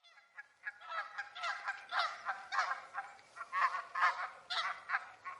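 Several geese honking, many short calls overlapping one another. The calls start faintly and come thick and fast from about a second in, thinning out near the end.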